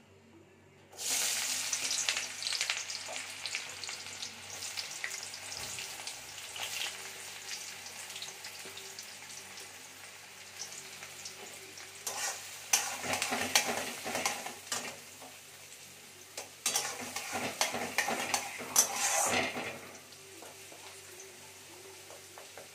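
Chopped onions dropped into hot oil in a metal kadai: a sudden loud sizzle about a second in that keeps going as a steady frying hiss. From about halfway through, a spatula stirs and scrapes the onions against the pan for several seconds, after which the sizzle settles quieter.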